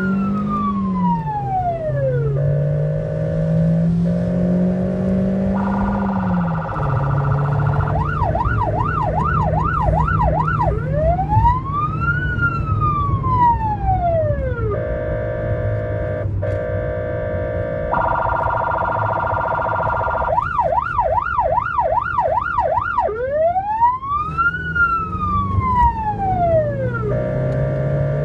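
Ambulance's electronic siren heard from inside the vehicle, cycling through its modes: a slow rising and falling wail, a low steady tone, a higher steady tone, then a fast yelp, the cycle repeating about every 12 seconds. Engine and road noise run underneath.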